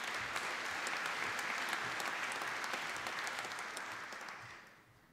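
Audience applauding a graduate crossing the stage, the clapping dying away about four and a half seconds in.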